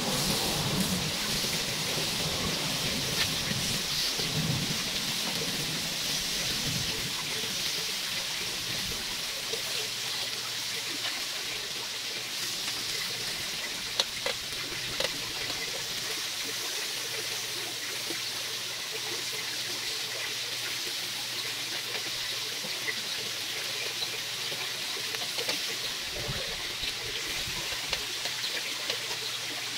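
Marinated chicken fillets sizzling steadily on an electric grill pan, with a sharp click of metal tongs against the grill about halfway through.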